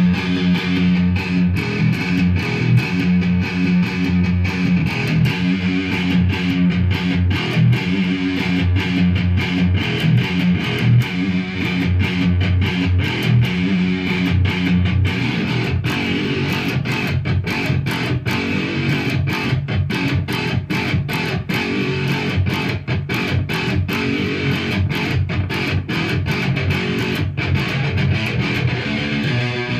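Extended-range electric guitar played solo with a pick: low riffing and picked runs. About halfway through, the playing turns to denser, more clipped picking.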